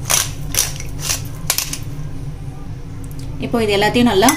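Sharp clicks of a metal utensil tapping against a glass mixing bowl, about two a second, as a butter-and-spice paste is made. A voice comes in near the end.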